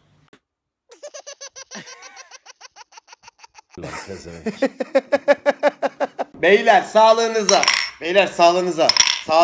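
A man laughing in rapid, even pulses, in several short stretches; the laughter grows loud in the last few seconds.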